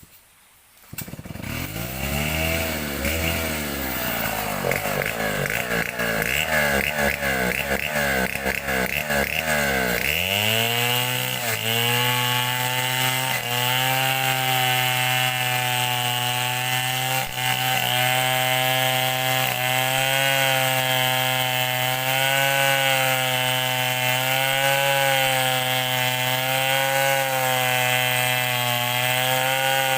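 Assembled Stihl 070-style two-stroke chainsaw starting about a second in and revving up and down unevenly. About ten seconds in it goes to full throttle and holds a high, steady pitch that wavers slightly as it cuts along a log of kembang wood.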